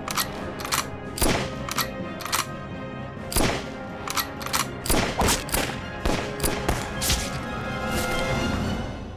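Rifle shots fired in quick, irregular succession over dramatic background music. The shots stop near the end while the music swells.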